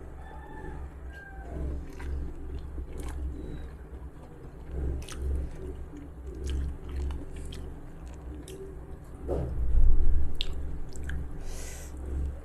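Close-up chewing and mouth sounds of a person eating rice and stir-fried genjer with her fingers, small uneven smacks and clicks over a steady low hum. A louder bump comes near the end.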